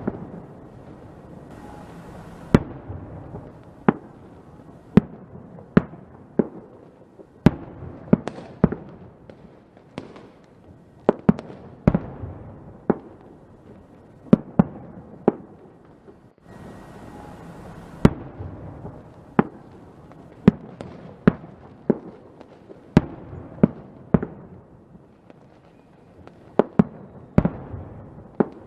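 Fireworks going off: a string of sharp bangs at uneven intervals, roughly one a second, over a steady rumbling hiss.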